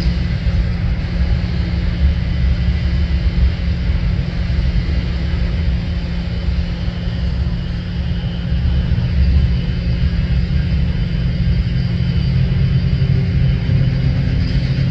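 Norfolk Southern diesel locomotive and short freight train rolling slowly, heard as a steady low rumble.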